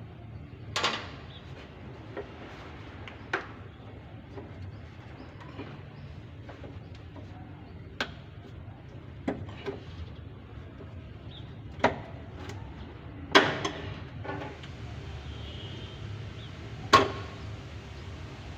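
Scattered sharp knocks and clanks, about eight of them at uneven intervals, the loudest two near the end, over a steady low hum.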